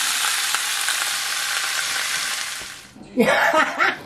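Raw chicken pieces sizzling as they fry in hot oil in a pan, the sizzle fading out about three seconds in. A person's voice follows near the end.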